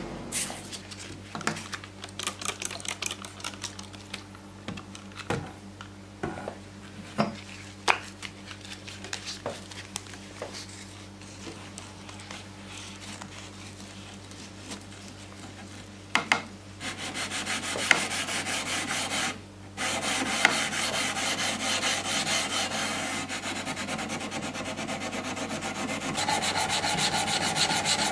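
Hand-sanding a stainless steel knife blade with sandpaper wrapped around a block: scattered clicks and light scraping at first, then fast, even back-and-forth sanding strokes from a little past halfway on.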